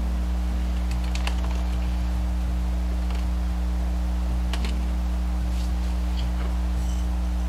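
A steady low hum, with a few faint clicks and rustles of hands picking flaked almonds from a plastic bag about a second in and again around four and a half seconds.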